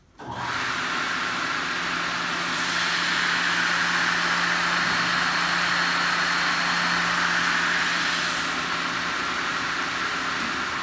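MS300 aluminium/uPVC circular saw switched on: the motor and blade start suddenly and run loudly with a steady hum. It gets louder for several seconds in the middle as the blade is raised into the clamped timber block, then the sound falls off near the end as the saw winds down.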